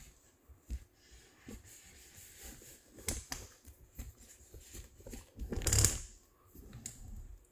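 Handling noise: scattered light clicks and taps, with a louder rustle a little over five seconds in.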